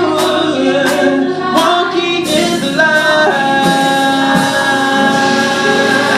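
Gospel vocal ensemble singing in close harmony, with sharp percussive hits on the beat for the first couple of seconds. The voices then settle onto a long held chord.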